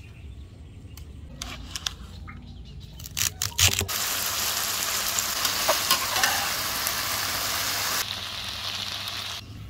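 Chicken pieces and green vegetable stems sizzling loudly in a hot wok as they are stir-fried with a metal spatula. A few sharp clatters come just before the sizzle sets in, about four seconds in. The sizzle eases slightly about eight seconds in and stops shortly before the end.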